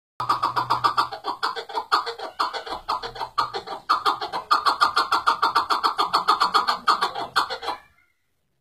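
Chukar partridge calling: a fast, unbroken run of sharp chuck notes, about seven a second, that breaks off near the end.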